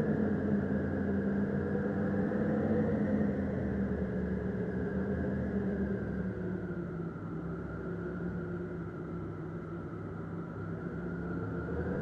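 Synthesized wind from the Tonsturm Windmaschine plugin, built from samples of a vintage Windhowler wind machine, on its Subtle Breeze preset: a steady, dull wind noise with a low rumble and faint held tones in it. It eases off about halfway through and builds again near the end.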